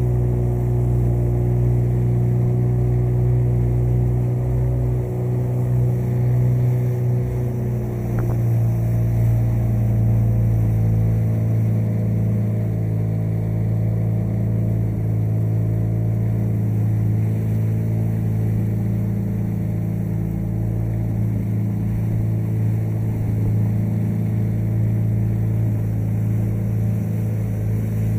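Motorboat engine running steadily under way, a constant low drone. Its tone shifts slightly about eight seconds in.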